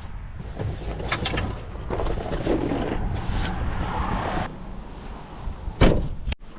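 Wind buffeting the microphone over a low rumble, with scattered knocks and one sharp thump about six seconds in.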